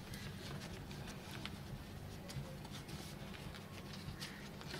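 Quiet room tone with a few faint, scattered clicks and light rustles.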